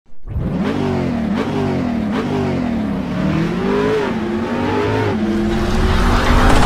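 An engine revving in repeated blips, its pitch climbing and dropping several times, then holding at a steady pitch from about five seconds in.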